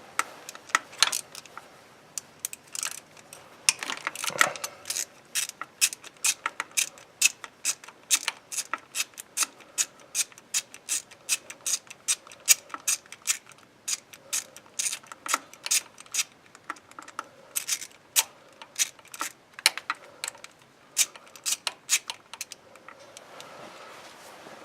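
Ratchet wrench with a 10 mm socket clicking in quick, uneven runs as it backs out the bolt holding a camshaft position sensor.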